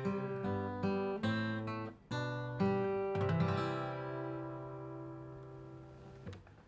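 Acoustic guitar playing the song's closing chords: several chords struck in the first few seconds, then a final chord left to ring and fade before it is cut off about six seconds in.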